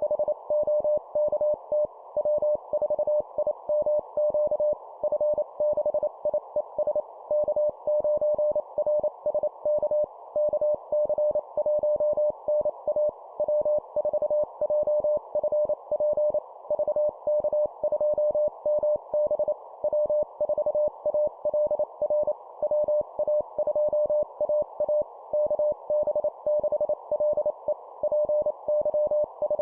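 Morse code (CW) at 25 words per minute, sending amateur radio call signs as a single mid-pitched tone keyed rapidly on and off in dots and dashes. A steady hiss, like filtered band noise from a receiver, sits under the tone and carries on between the characters.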